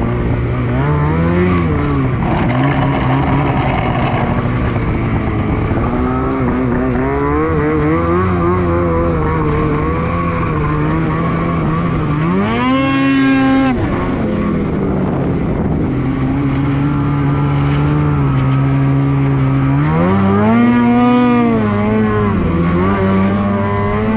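2021 Polaris Switchback Assault 850's two-stroke twin engine running under way, its revs rising and falling with the throttle. There is a sharp climb in revs about twelve seconds in and another rise near twenty seconds.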